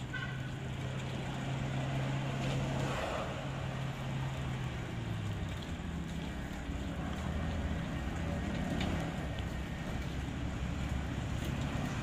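Electric drive motors of a homemade four-wheel remote-control mower chassis humming as it drives along a concrete path, the hum dropping in pitch about five seconds in.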